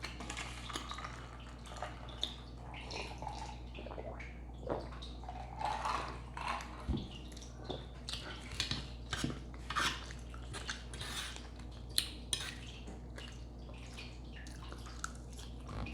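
Fork clicking and scraping against a salad bowl, with wet eating sounds of a dressed salad being chewed. The clicks are short and irregular.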